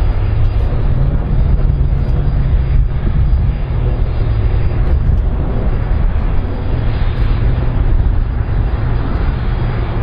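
Airplane engine noise: a loud, steady low rumble with a rushing haze above it.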